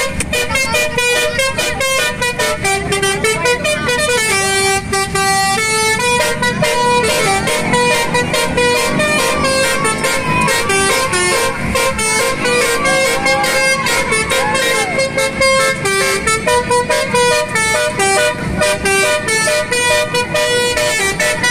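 Telolet basuri horn, a multi-note vehicle horn, playing a fast tune of short, clipped notes that step up and down in pitch.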